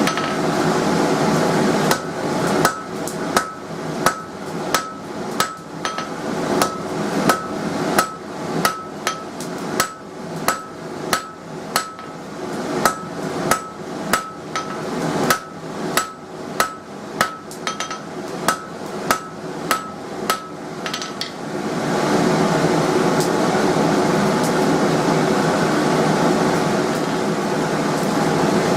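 Blacksmith's hammer striking a hot square steel bar on an anvil while forging a chisel point: a steady run of blows, a little under two a second, each with a short bright ring. A steady rushing noise runs underneath and is heard alone for the first two seconds and the last seven.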